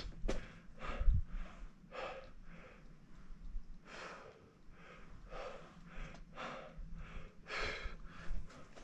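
A climber breathing hard from exertion: a quick run of short, noisy breaths in and out, about two a second at times, with a sharp click near the start.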